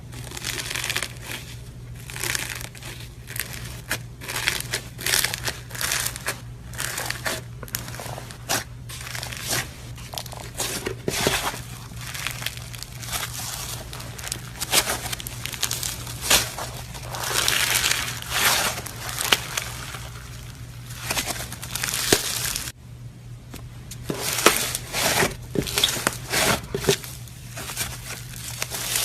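Crunchy slime being squeezed and kneaded by hand: dense, irregular crackling and popping, with a brief lull about three-quarters of the way through. A steady low hum runs underneath.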